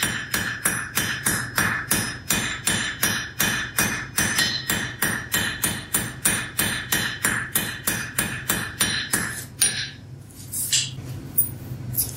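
Blacksmith's hand hammer striking a red-hot bar on an anvil to draw it out, about three blows a second with the anvil ringing. The blows stop about ten seconds in, followed by a few light knocks.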